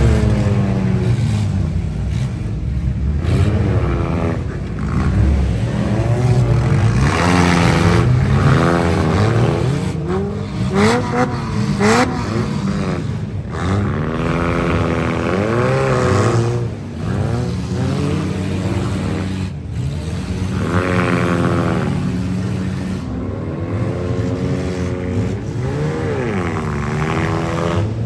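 Demolition derby car's engine, heard from inside the car, revving hard and dropping back over and over as it accelerates and backs off, with a few brief sharp knocks partway through.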